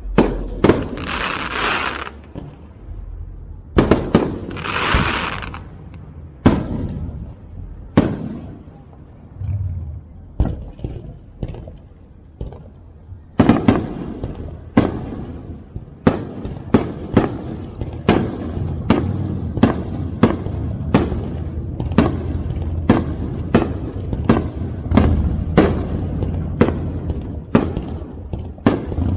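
Aerial fireworks bursting. In the first few seconds two long crackling hisses come between scattered booms. After a quieter stretch a rapid string of sharp bangs begins about 13 seconds in, one to two a second.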